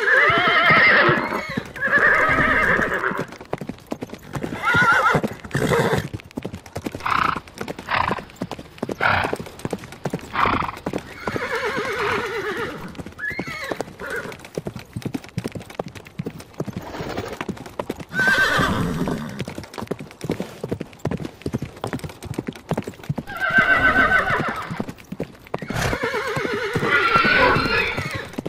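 Horses whinnying several times, long quavering neighs near the start, in the middle and again near the end, with hooves clip-clopping in between.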